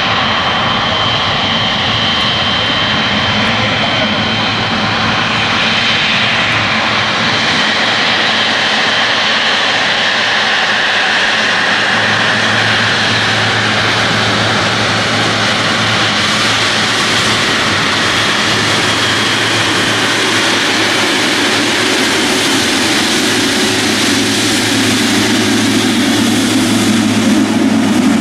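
Boeing 777 freighter's two GE90 turbofans running at taxi power as the jet taxis past: a steady high whine over a broad jet rush. A deeper hum comes up partway through, and the sound grows slightly louder near the end as the aircraft comes abeam.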